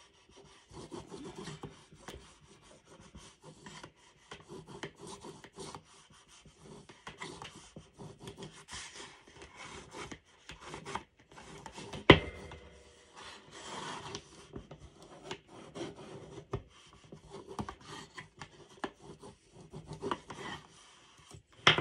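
Bone folder rubbing to and fro over glued cardstock, burnishing it down in repeated short strokes with pauses. A single sharp knock about halfway through is the loudest sound, with another near the end.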